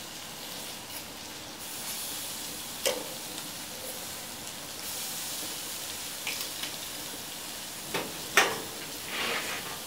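Beef rump steaks sizzling on hot gas-grill grates as they are turned with metal tongs: a steady hiss with a light click of the tongs about three seconds in and a louder clack or two near the end.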